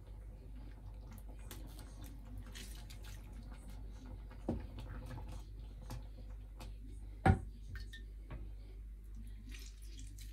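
Quiet kitchen handling sounds from a wooden spoon stirring berries simmering in a stainless saucepan and a hand moving in a plate of water where gelatin sheets soak: small clicks and splashes over a low steady hum, with one sharp knock about seven seconds in.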